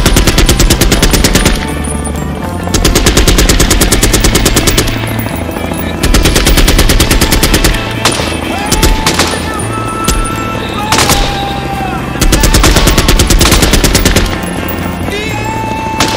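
Long bursts of rapid automatic gunfire, each lasting about two seconds with short pauses between, over background music with a steady bass line.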